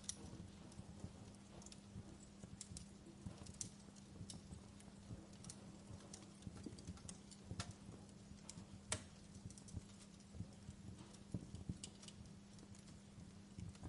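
Wood fire in a fireplace crackling: irregular sharp pops and snaps, one louder pop about nine seconds in, over a faint steady low hum.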